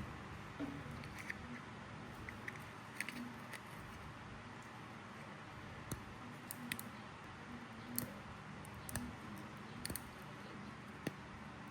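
Scattered light clicks and taps of small objects being handled, over a steady background hiss.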